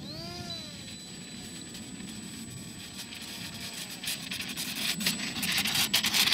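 The RC seaplane's electric motor whines briefly as the throttle is blipped, the pitch rising and falling once. After that come scattered crunching and rustling that grow louder near the end.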